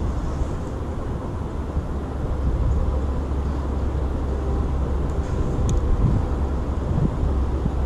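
Wind buffeting the microphone outdoors, a steady low rumble with a faint hiss above it, and one brief click about six seconds in.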